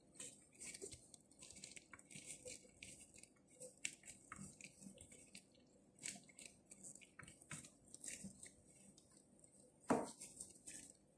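Faint rustling and soft crinkling of gloved hands rolling grape leaves around a rice filling, with scattered small ticks and one louder knock about ten seconds in.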